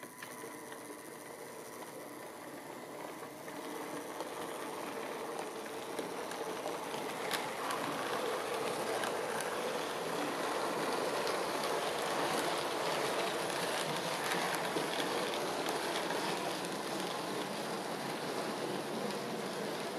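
Model railway train running on the layout's track: a steady rumble of wheels on the rails that grows louder over the first several seconds, with an occasional click from the rail joints.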